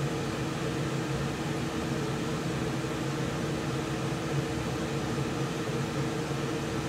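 HVAC furnace blower fan running steadily: an even rush of air with a steady low hum.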